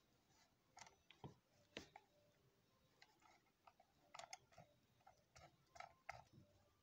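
Near silence with faint, irregular small clicks and ticks, a few of them bunched together about four seconds in and again near the end.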